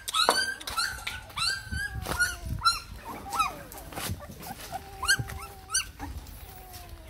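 Young puppies whimpering and squealing: a rapid string of short, high-pitched cries over the first few seconds, then a few scattered cries around the middle and later.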